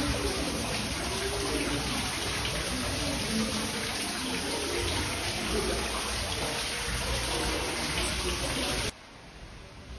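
Water falling from the cave rock into a pool, a steady rushing splash; it cuts off suddenly near the end.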